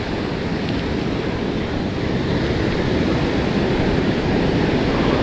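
Ocean surf washing on the shore, a steady noise that swells slightly partway through, with wind on the microphone.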